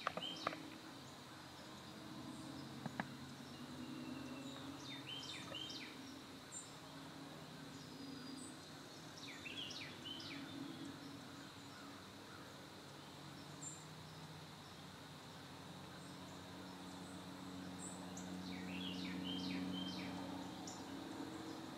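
Dusk field ambience: a songbird calls in short clusters of quick down-slurred chirps, three or four times, over a faint steady high insect drone and a low distant hum that swells near the end. A couple of sharp clicks sound in the first few seconds.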